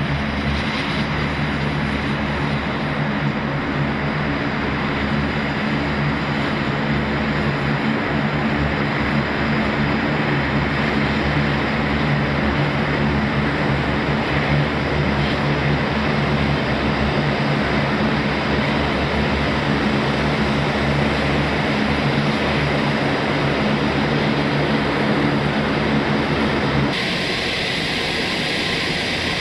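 Four turboprop engines of a C-130J Super Hercules running as it taxis, a loud steady propeller drone. Near the end the deep drone drops away suddenly, leaving a lighter steady rush as the propellers slow.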